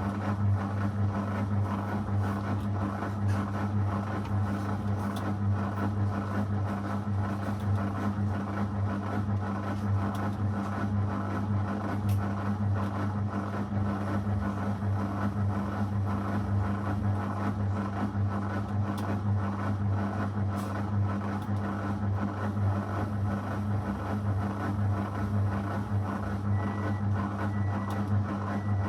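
Zanussi FL984CN front-loading washing machine running steadily partway through its 35° cycle, a constant low motor hum with a sound of running machinery over it.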